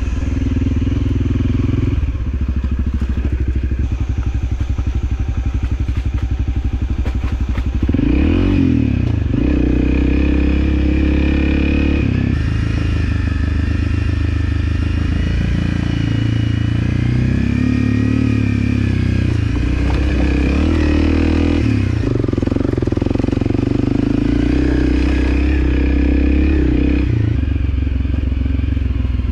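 Motorcycle engine running under way on an off-road trail, its pitch rising and falling several times as the rider opens and closes the throttle.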